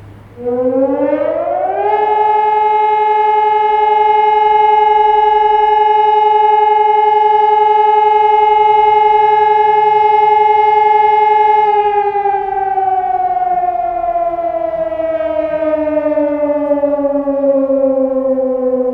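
Sonnenburg SES 1200 electronic siren sounding the fire-alarm signal: a loud tone starts about half a second in, rises quickly to one steady pitch held for about ten seconds, then slowly falls away near the end.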